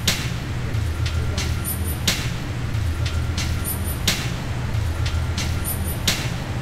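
Background music: a slow repeating beat over a steady bass line, with a sharp hit about every two seconds and lighter hits and high ticks between.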